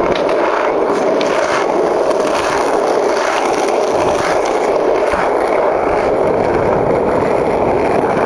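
Skateboard wheels rolling over coarse asphalt: a steady, loud gritty rolling noise, with a faint click now and then.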